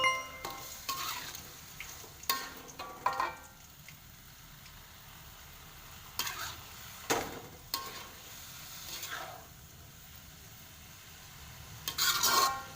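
Spatula stirring and scraping in a frying pan while stir-frying noodles and bean sprouts, over a faint sizzle. It comes as a series of separate short scrapes and clinks, with a louder cluster near the end.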